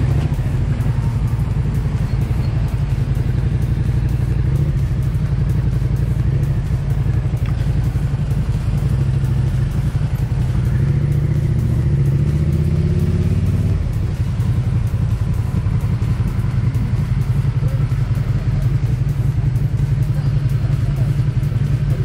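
Motorcycle engine running steadily in slow traffic, its pitch climbing for a few seconds past the middle as it speeds up, then falling back.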